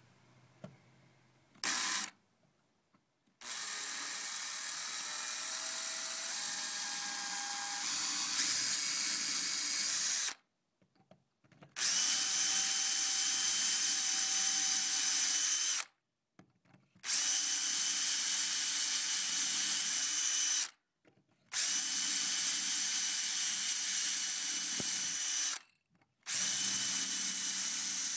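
Power drill with a masonry bit boring into stone: a short blip, then the drill running steadily in several-second stretches, stopping briefly and starting again four times.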